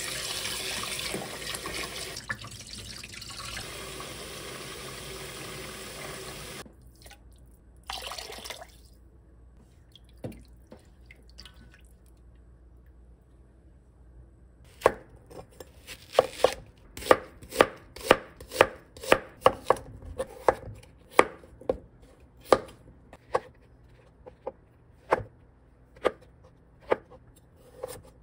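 Tap water running into a stainless steel bowl as pork rib pieces are swished around by hand, cutting off abruptly about seven seconds in. From about halfway through, a chef's knife chops vegetables on a cutting mat in sharp, even strokes a little under two a second.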